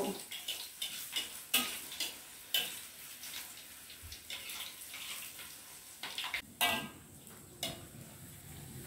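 Metal spatula clinking and scraping against a wok as vegetable fritters fry in oil, with a faint sizzle underneath. The clinks come irregularly, a handful of sharp ones spread through.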